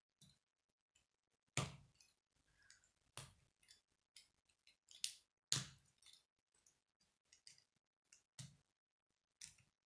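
K'nex plastic rods and connectors being snapped together by hand: a handful of sharp plastic clicks at irregular intervals, with fainter ticks of pieces being handled between them.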